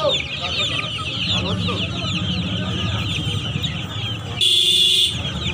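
A basketful of chicks peeping nonstop, many quick high chirps overlapping, over a low murmur of market bustle. About four and a half seconds in, a louder, shrill sound cuts in for under a second.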